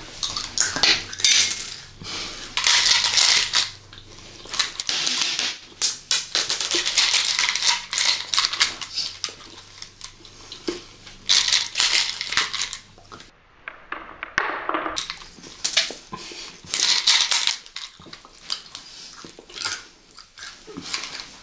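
Close-miked chewing and crunching of small candies, in irregular bursts, with clicks of small plastic flip-lid candy containers being handled.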